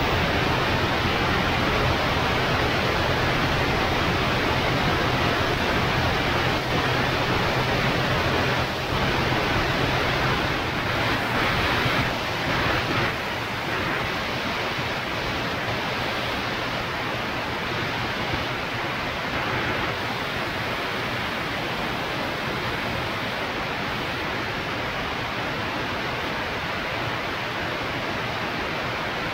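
Zenith CH 650 B light aircraft in flight: a steady rush of airflow and engine noise. A low engine hum shows through for the first ten seconds or so, then the sound eases slightly into an even rush.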